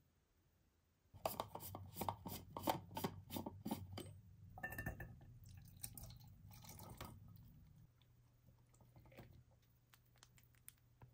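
Pieces of cooked rotini pasta dropped into a stainless steel food jar: a quick run of soft wet taps starting about a second in, thinning to a few scattered ones after about four seconds.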